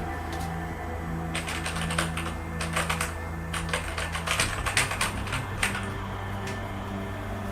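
Computer keyboard keys clattering in quick, irregular runs of clicks for a few seconds, then stopping, over background music.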